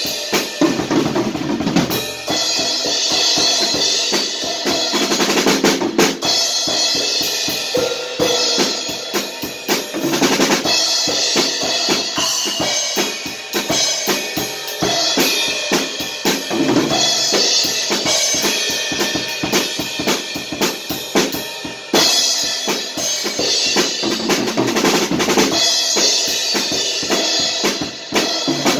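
Acoustic drum kit played in a steady, busy groove: bass drum, snare and cymbals struck continuously, with cymbal wash ringing over the beat.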